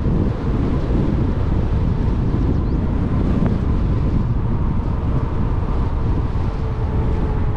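Wind buffeting the microphone of a rider on a moving e-bike: a loud, steady rumble, with a faint steady whine underneath.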